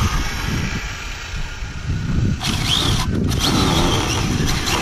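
Electric motor of a radio-controlled car whining, rising and falling in pitch as it is throttled, from about halfway through, over a low rumble underneath.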